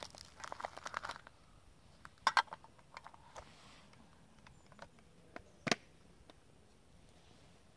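Small twig fire in a folding metal camp wood stove crackling, with a quick run of crackles in the first second and then scattered sharp snaps and ticks, two of them louder, about two seconds and about five and a half seconds in.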